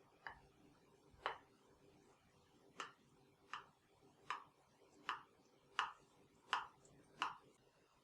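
A series of about nine sharp knocks, as of a utensil striking a hard kitchen surface. After two irregular knocks, they settle into an even rhythm of roughly one every three quarters of a second.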